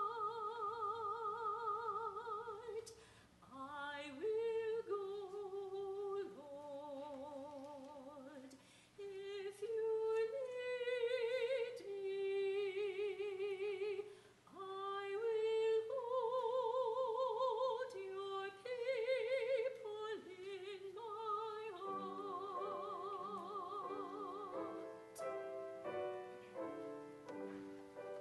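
Church choir anthem with piano: a high woman's voice sings long held notes with wide vibrato, phrase after phrase. A few seconds before the end the singing stops and the piano plays on alone.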